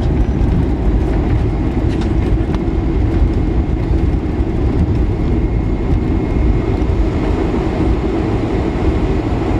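Cabin noise inside a Boeing 747-400 rolling out on the runway after touchdown: a loud, steady rumble of the landing gear on the runway mixed with engine noise. A faint high whine joins about halfway through.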